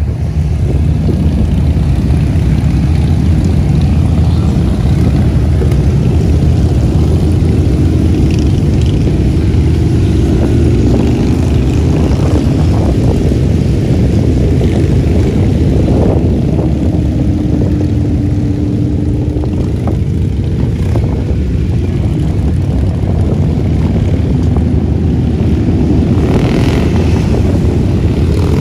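Many motorcycles, mostly big cruiser and touring bikes, riding past in a long column: a steady, loud massed engine rumble with individual engine notes rising and falling as bikes go by. A louder, sharper bike passes near the end.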